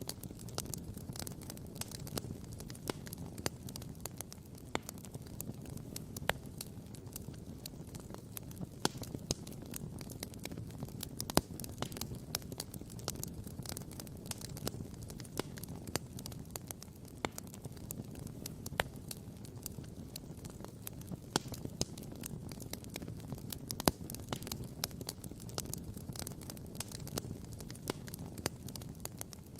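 Wood campfire crackling, with sharp pops scattered irregularly throughout, the loudest about a third of the way in and again about four fifths of the way in, over a low steady rumble.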